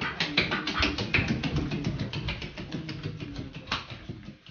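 Quick, regular footsteps tapping on a hard marble floor as a white domestic duck waddles after a person, getting fainter toward the end.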